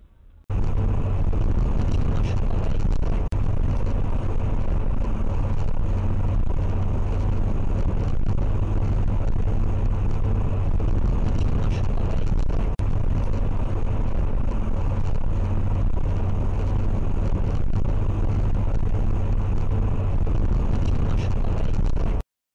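Steady low rumble of a car's engine and tyres at motorway speed, heard from inside the cabin. It cuts off suddenly near the end.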